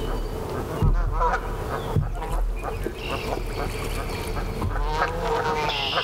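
Canada geese honking: a call about a second in and a longer run of calls near the end, with other birds singing in the background.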